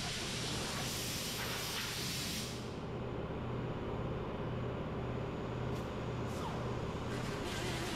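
A pneumatic air tool on a compressed-air line hisses loudly for about two and a half seconds, then stops. Short bursts of air hiss follow near the end, over a steady low pulsing hum.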